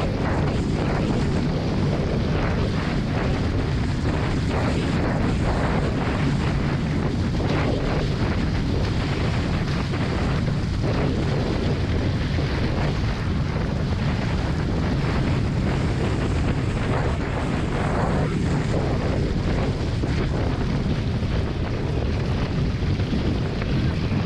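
Strong wind buffeting the microphone over water rushing and splashing along the hulls of a Hobie 16 catamaran sailing fast, a steady rumble broken by brief gusts and spray.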